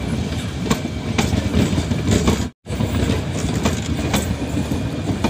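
Metre-gauge passenger coaches rolling past close by: a steady rumble of wheels on rail with sharp clacks as the wheels cross the rail joints. The sound cuts out for an instant about halfway.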